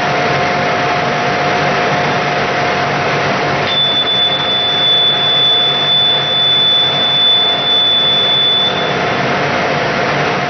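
Brake on a test rig running with a steady mechanical hum and noise; about four seconds in, the brake suddenly breaks into a single high, steady squeal that holds for about five seconds and then stops. The squeal comes and goes at a low speed where the brake can either stay quiet or squeal, the hysteresis of a subcritical Hopf bifurcation, so a disturbance can tip it into squealing.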